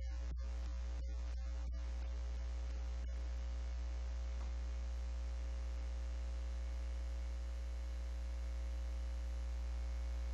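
Steady electrical mains hum with hiss. The last faint strokes of the music fade out in the first few seconds, leaving only the hum.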